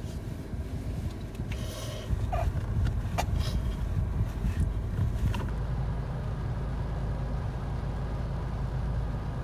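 Low, steady rumble of a car's cabin heard from the passenger seat, with a few light clicks and a brief squeak in the first few seconds. About halfway through it turns steadier and duller.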